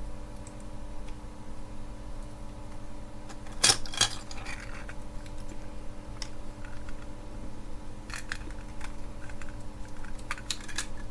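Small plastic remote control case being handled and snapped back together: scattered light clicks and taps, the loudest a sharp click about three and a half seconds in, over a steady low electrical hum.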